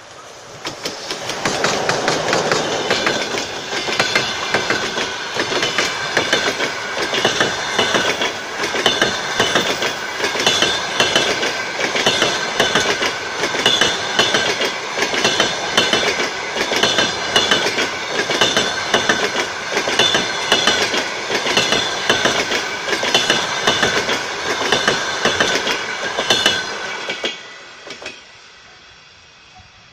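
EP20 electric locomotive and its passenger coaches passing at speed, wheels clattering over the rail joints in a fast, steady rhythm with a high ringing over it. The sound swells in the first two seconds as the locomotive reaches the camera and drops off sharply near the end as the last coach goes by.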